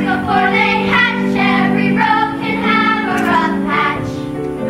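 Music: children singing a song together over a steady instrumental accompaniment.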